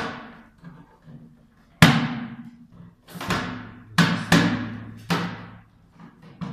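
Half a dozen sharp plastic knocks and clacks from a plastic flush tank being handled and its lid pressed down into place, each trailing off over about half a second.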